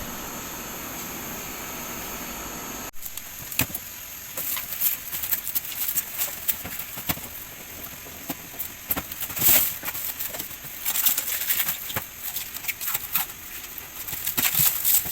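AUX portable air conditioner running with a steady, even hum and no grinding, its blower fixed. About three seconds in the sound cuts, and irregular crackling and rustling follows over a steady high hiss.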